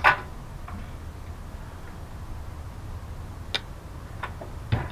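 Metal clatter as the wire grates are handled on a two-burner propane camp stove, followed by a few scattered light clicks and taps, over a steady low hum.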